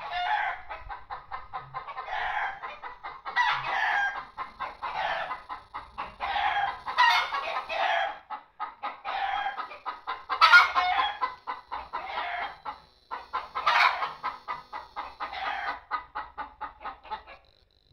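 Chickens clucking and cackling in a fast run of short calls, with louder cackling bouts about every three and a half seconds, stopping just before the end.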